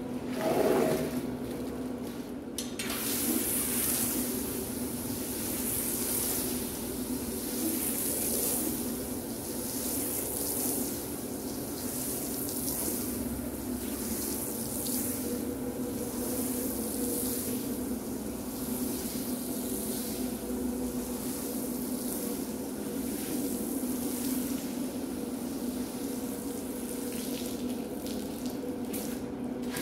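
Shampoo foam and water spraying onto a wet rug: a steady hiss that swells and fades every couple of seconds, over a steady low machine hum. A short squeegee scrape on the tile floor comes about a second in.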